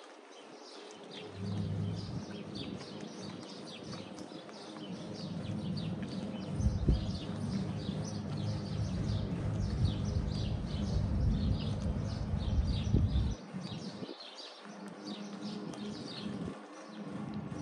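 Many small birds chirping in a dense, continuous chorus of short chirps. A low rumble runs under it and cuts out for a few seconds in the last part.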